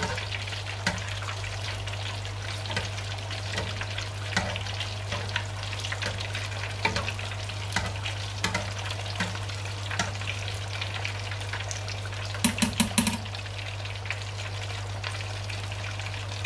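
Whole chicken deep-frying in a pot of hot oil: steady sizzling with frequent crackling pops as a ladle scoops oil over it. About three-quarters of the way through comes a quick run of about five sharp taps, over a steady low hum.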